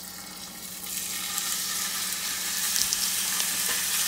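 Chunks of stewing beef sizzling in hot olive oil in a skillet, the sizzle growing louder about a second in as more beef goes into the pan, with scattered crackles.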